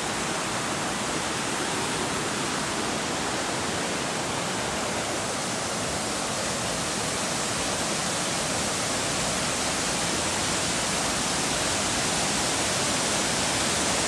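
Mountain stream rushing and cascading over rocks, a steady full roar of white water that grows a little louder toward the end.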